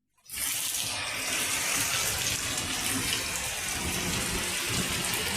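Heavy rain pouring down steadily, a dense, even hiss of falling water that starts just after a moment of silence at the beginning.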